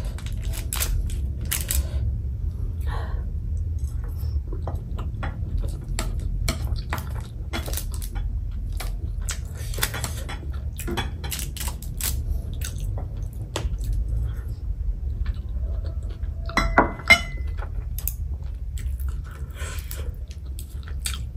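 Eating sounds: metal chopsticks clicking and scraping against a foil-lined tray and plate while picking up noodles, with some chewing, over a steady low hum. A single louder, briefly ringing clink comes about three-quarters of the way through.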